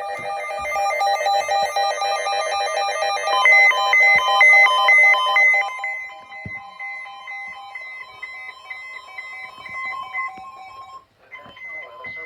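Electronic weather-alert tones, several patterns overlapping: fast beeping that alternates between pitches, loudest in the first half. It then thins to one pair of alternating high and lower beeps, which breaks off briefly near the end and comes back.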